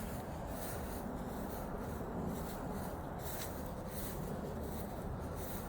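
Footsteps scuffing and rustling through grass in an irregular walking rhythm.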